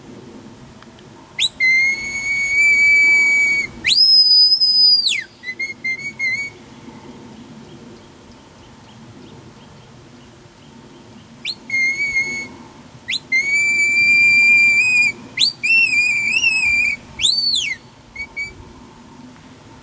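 Shepherd's whistle commands to a herding dog: a string of shrill whistle notes, some held steady for a second or two, others rising or falling in pitch, in two bursts with a quiet pause of several seconds between them.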